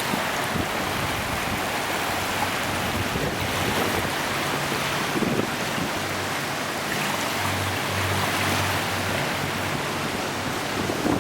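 Strong wind buffeting the microphone over storm-surge waves and surf, a steady dense rushing noise. A low steady hum runs underneath, a little louder around eight seconds in.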